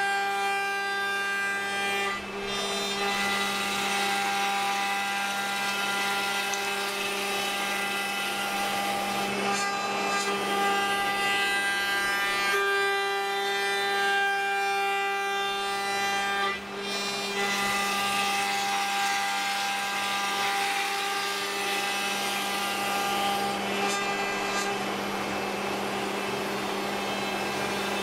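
CAMaster CNC router spindle running at about 12,000 RPM while a surfacing cutter planes the face of a myrtle wood board: a steady whine over the hiss of the cutter in the wood. The sound dips briefly twice, about two seconds in and again about seventeen seconds in.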